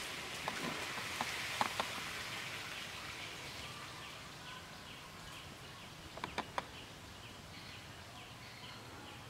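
Outdoor background ambience: a steady hiss with a faint, high, short chirp repeating about three times a second, and a few sharp clicks, loudest about six seconds in.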